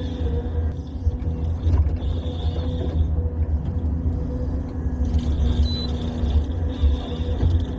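A heavy machine's engine running steadily, a deep rumble with a high whine that cuts in and out every second or two.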